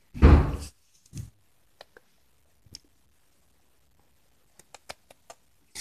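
Handling noise: a dull thump near the start and a smaller one about a second in, then a few sparse, light clicks and taps.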